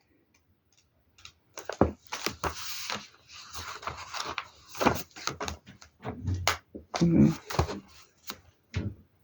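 Rummaging through objects on a cluttered table: a scattered series of knocks and clicks as things are picked up, moved and set down, with a stretch of rustling about two seconds in.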